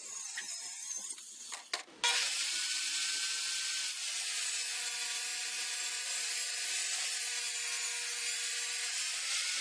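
Power saw cutting through half-inch plywood: after a couple of seconds of quiet handling, the saw starts abruptly and runs steadily through the cut with a constant whine.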